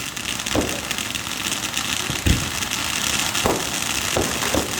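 Fireworks going off: about five booms, the loudest a little over two seconds in, over a steady hiss of noise.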